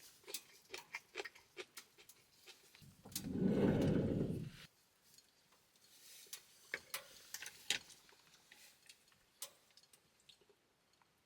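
Light clicks and taps of utensils on a small charcoal hibachi grill net while food is prepared on it, with a loud rushing noise about three seconds in that lasts about two seconds.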